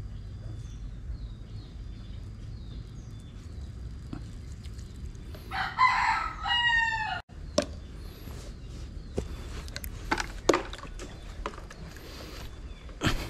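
A rooster crowing once, loud, about six seconds in, its call cut off abruptly. A few sharp clicks and knocks follow, over a low background rumble.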